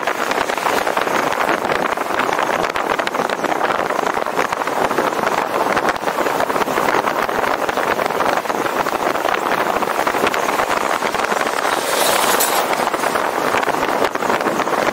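Steady rushing wind and road noise from a moving vehicle, with a brief brighter hiss about twelve seconds in.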